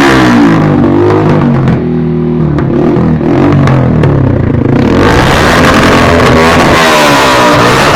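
Yamaha YB125Z motorcycle's single-cylinder four-stroke engine revved up and down through its exhaust. About two seconds in it settles to lower revs for a few seconds, then revs up again near the end.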